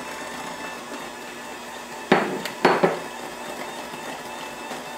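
KitchenAid hand mixer running steadily, its beaters blending flour into cookie dough in a glass bowl. Two sharp knocks about half a second apart come about two seconds in.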